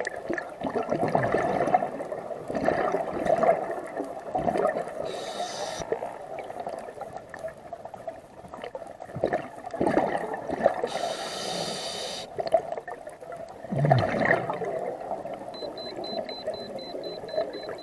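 Scuba regulator breathing heard underwater: slow, irregular breaths with a hissing inhale twice and bursts of bubbling exhaust between them. A faint high pulsing tone starts near the end.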